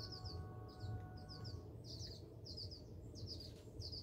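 A small bird chirping over and over in short high clusters of two or three notes, about two clusters a second, over a low steady hum.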